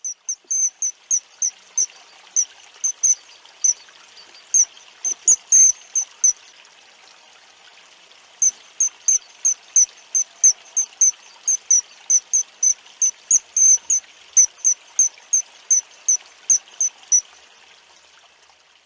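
A small bird repeating a single short, high note about three times a second, in two long runs separated by a pause of about two seconds, over a faint steady hiss.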